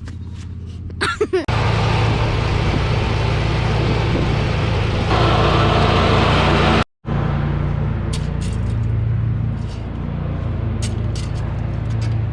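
A vehicle engine running steadily, getting louder and fuller about a second and a half in. It cuts out for a moment about seven seconds in, then carries on.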